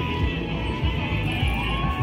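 Music playing, dense and steady, with low thumps of a beat under it.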